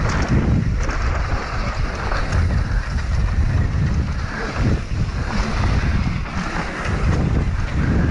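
Wind buffeting the microphone and tyres rolling over a dirt trail as a downhill mountain bike descends at speed. It is a steady, loud rushing rumble that swells and dips with the terrain.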